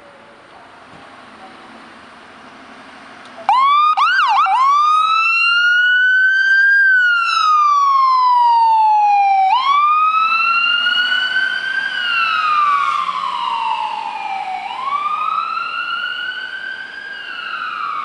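Ambulance siren switching on about three and a half seconds in with three quick rising chirps, then a slow wail rising and falling every five seconds or so. It gets gradually quieter toward the end as the ambulance drives away.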